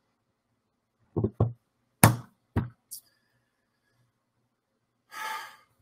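A few soft knocks spread through a quiet pause, then a brief hiss near the end.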